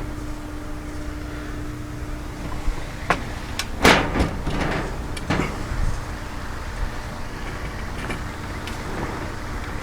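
Knocks and clatter of chicken coop parts being handled during assembly, a cluster of sharp knocks about three to five seconds in, over a steady low rumble and faint hum.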